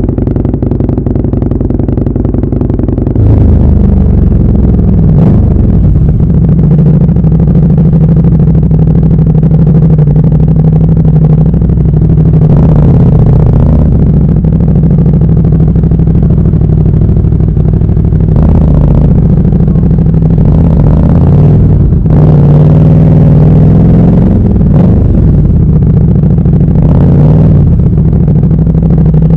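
Motorcycle engine running steadily at an even pitch. About three seconds in it becomes louder and deeper, then holds with small changes in pitch and a few short knocks.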